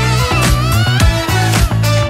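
Upbeat background music with a steady drum beat, a strong bass line and a gliding lead melody.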